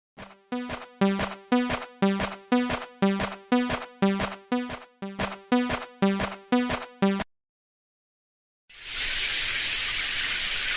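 Japanese railway level-crossing alarm ringing 'kan-kan', about two strikes a second alternating between two pitches, stopping about seven seconds in. After a short silence a loud, steady rushing noise starts near the end.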